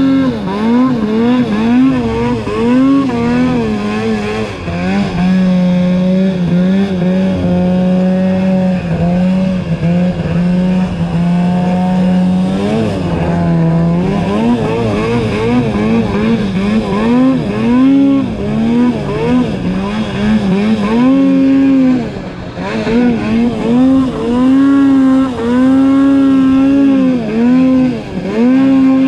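Snowmobile engine under constant throttle work while riding through deep powder, its pitch rising and falling over and over. It holds a steadier note between about five and thirteen seconds in, and briefly drops off around twenty-two seconds in.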